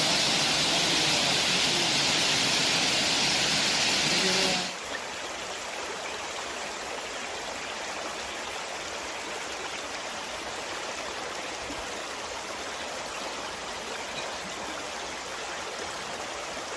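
Waterfall and stream water rushing steadily: loud and bright for the first four and a half seconds, then dropping suddenly to a quieter, even stream sound.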